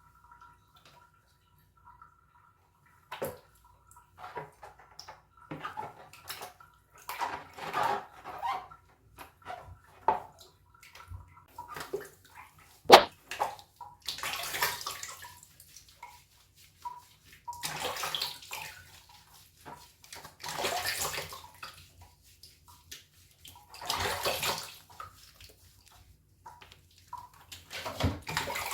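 Water being poured and splashed in a bath while a kitten is washed, coming in irregular bursts that grow longer in the second half. One sharp knock about halfway through is the loudest sound.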